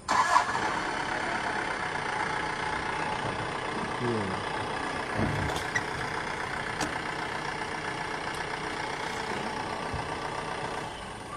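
A safari jeep's engine running close by, starting abruptly and cutting off about eleven seconds later, with a low sound falling in pitch about four to five seconds in.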